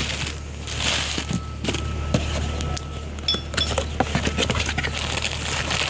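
Packaging rustling and crinkling as new car parts are unpacked and handled, with scattered small clicks and knocks, over a steady low hum.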